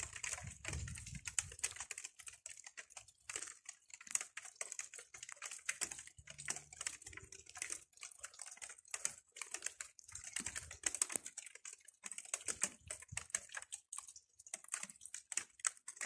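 Light rain falling: irregular taps of raindrops, several a second, over a faint hiss.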